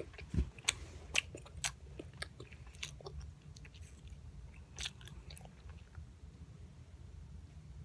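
A boy chewing pink Hubba Bubba bubble gum close to the microphone: irregular short wet clicks and smacks, more frequent in the first few seconds, over a faint low rumble.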